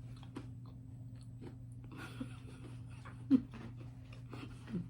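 Faint mouth sounds of someone tasting a soda: scattered small clicks and one short, louder low sound a little past three seconds, over a steady low hum.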